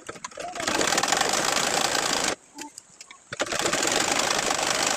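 Sewing machine stitching in two runs of about two seconds each, stopping for about a second in between.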